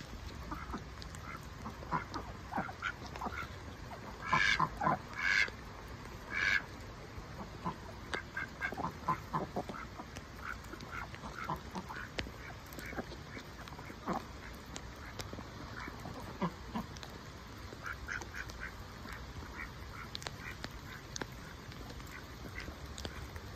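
Dutch Hookbill ducks quacking while foraging: three loud quacks between about four and six and a half seconds in, among many short, softer calls.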